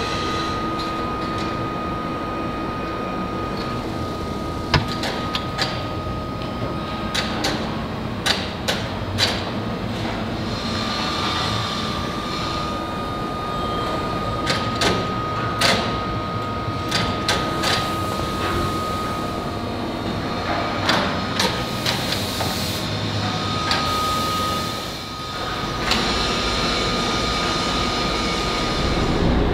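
Foundry machinery running steadily, with a thin high whine that comes and goes. Many sharp metallic clanks come from steel sand-mold flasks being knocked and moved.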